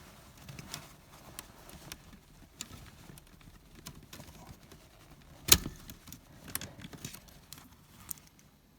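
Scattered light clicks and clinks of hand tools and metal parts, with one sharp knock about five and a half seconds in.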